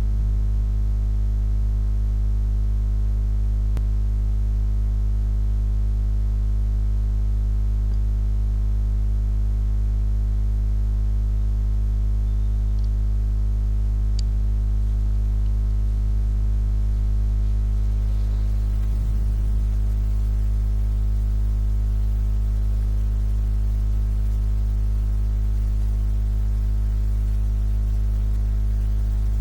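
Steady electrical mains hum with a buzz of overtones, unchanging in pitch and level.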